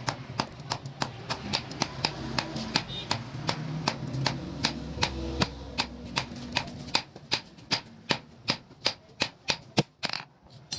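Hand hammer striking a red-hot sickle blade on a steel anvil block, forging it with about three sharp blows a second; the hammering stops near the end.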